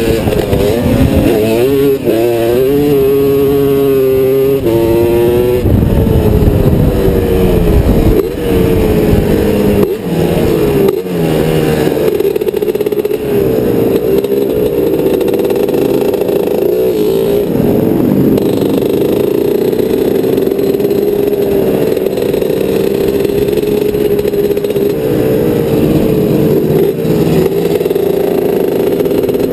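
Vintage three-wheeler ATV's engine at race pace, heard from on board, revving up and down. The pitch climbs several times in quick succession in the first few seconds, drops briefly a couple of times near the middle as the throttle comes off, then holds steady and high.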